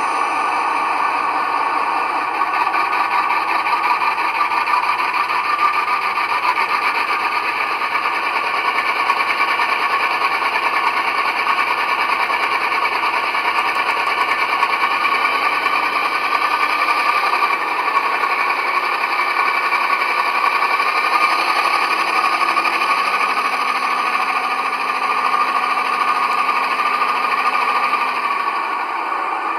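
A Class 68 diesel locomotive's DCC sound decoder playing its engine sound revved up in drive hold, through a small Foster 20x40 mm speaker in a bass reflex enclosure. The engine runs steadily throughout, with its lower note shifting in the last few seconds.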